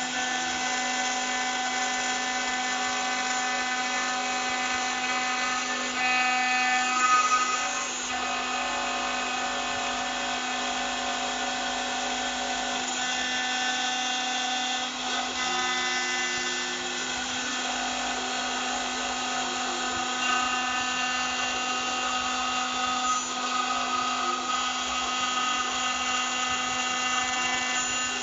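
CNC engraving spindle running at high speed, its bit cutting letters into an aluminium plate: a steady high whine with many overtones and shifting cutting noise, briefly louder about seven seconds in.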